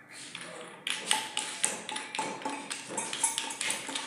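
Back nut being screwed onto a pillar tap's tail under a hand-wash basin: a quick run of small clicks and clinks, about three a second, each with a light ring from the basin.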